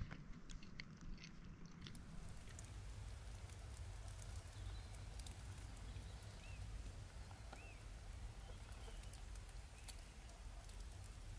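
Faint outdoor hillside ambience: a steady low rumble with scattered light clicks, and a few brief bird chirps about six to eight seconds in.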